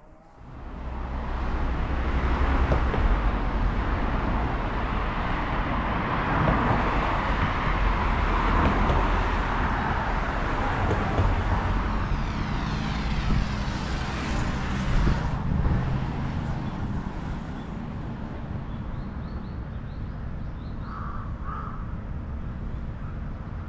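Street traffic noise, a steady rush with a low hum, swelling as a vehicle passes around the middle. Crows caw a few times near the end.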